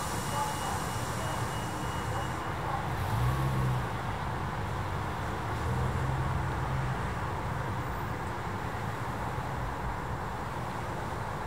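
Steady street traffic noise from cars passing by, with a low engine hum swelling twice, about three and six seconds in.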